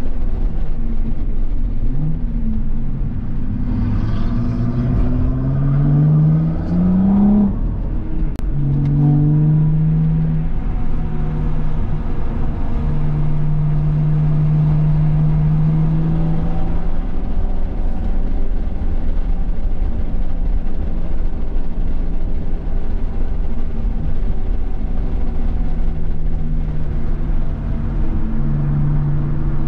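2017 BMW M240i's turbocharged 3.0-litre inline-six running under acceleration, its revs climbing for a few seconds. It drops sharply at a gear change about 8 seconds in, then holds at fairly steady revs with small rises and dips.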